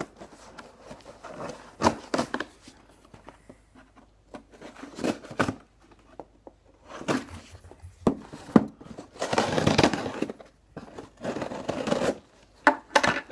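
A shipping package being torn open and handled: irregular tearing, crinkling and rustling, with the longest stretches of tearing about nine and eleven seconds in.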